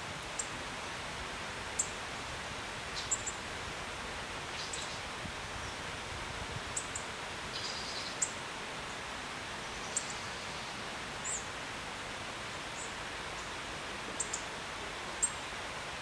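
Steady rush of a small waterfall, with short high bird chirps breaking in every second or two.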